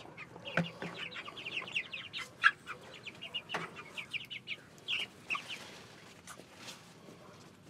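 Flock of Cornish Cross meat chickens clucking, a busy run of short high calls that thins out near the end.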